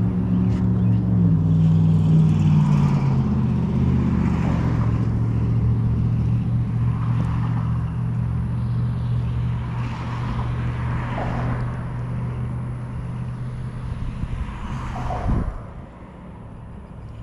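A motor vehicle's engine running with a low, steady hum that drops in pitch in the first couple of seconds, then holds before cutting off sharply near the end.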